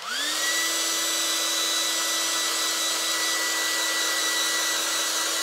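Handheld hair dryer running, loud: a steady whine over a rush of air, rising to speed in the first fraction of a second and then holding steady.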